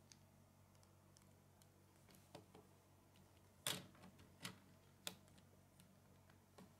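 Small plastic Lego motorbike model handled and set down on a wooden tabletop: a few faint clicks and taps, the loudest about three and a half seconds in.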